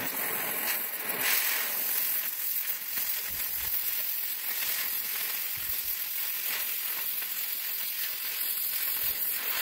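Oxy-fuel cutting torch cutting through steel plate: a steady hiss from the flame and oxygen jet as the molten metal is blown through.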